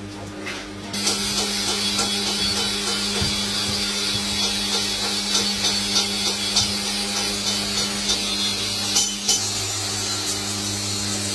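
An iron ladle scraping and stirring through molten metal and dross in a large open pan: a harsh, steady scraping hiss full of small crackling ticks that starts abruptly about a second in, with a couple of louder clicks near the end. A steady low hum runs underneath.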